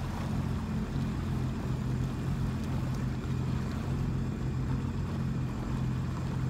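A boat motor idling, a steady low hum.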